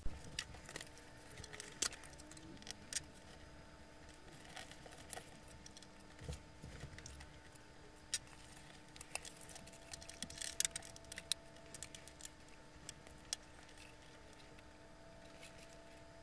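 Small handling noises of thin card and plastic Lego bricks being placed and pressed down on a shelf board: scattered light clicks, taps and paper rustles, over a faint steady hum.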